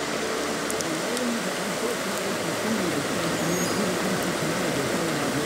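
Steady rush of floodwater from an overflowing creek, with faint, indistinct voices underneath.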